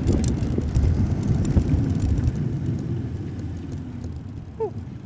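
Low rumble of wind and traffic while riding a bicycle in city traffic, fading steadily as the bike slows. There is a brief squeak about four and a half seconds in.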